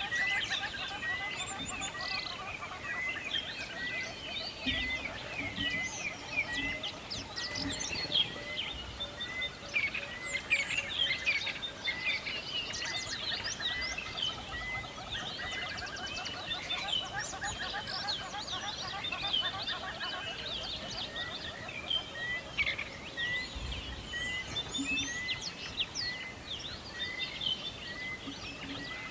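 A dense chorus of forest songbirds chirping and trilling, with one bird repeating the same short note about once a second throughout.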